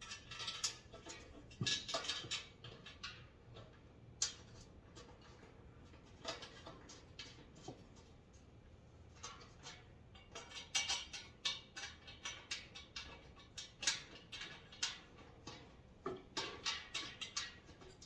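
Irregular clicks, taps and knocks of tool rack parts being handled and fitted together during assembly, coming in clusters with short pauses between them.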